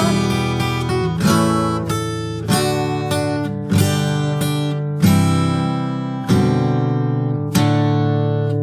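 Background music: acoustic guitar strumming chords with no singing, a strong strum about every second and a quarter.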